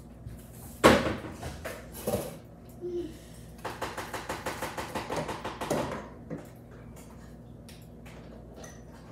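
Objects being handled: a sharp knock about a second in, another near two seconds, then about two seconds of rapid, even clicking.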